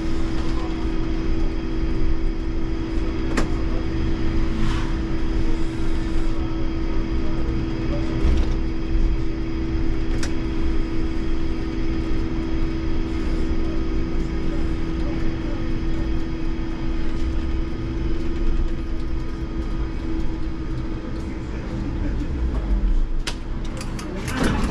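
IMC Hess Lightram 19 DC trolleybus heard from the driver's cab while driving: a steady electric hum over continuous road and tyre rumble, with a few light clicks and rattles. The hum fades away near the end.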